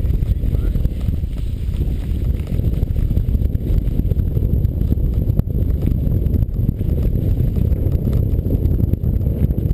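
Steady low rumble of wind buffeting a GoPro camera's microphone while it moves, with a few faint knocks.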